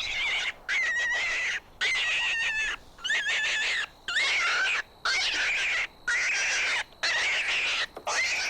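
A bird calling over and over: about nine harsh, drawn-out calls, each just under a second long, coming about once a second.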